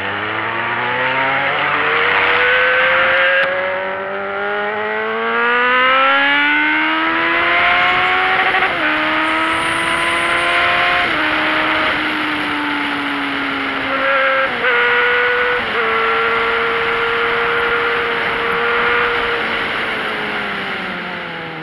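Motorcycle engine accelerating hard at high speed. Its pitch climbs steadily for about nine seconds, holds high with a few small dips, then falls away near the end, under a constant rush of wind on the microphone.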